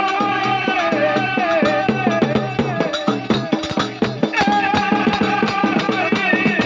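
Gujarati folk devotional music played loud: a held, wavering melody line over a fast, steady percussion rhythm.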